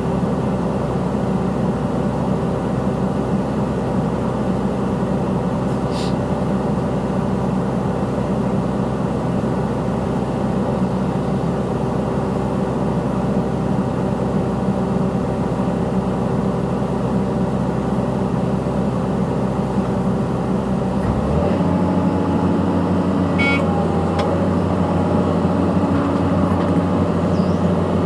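Caterpillar 320C hydraulic excavator's diesel engine running steadily. About 21 s in, the engine note changes and its deepest hum drops away.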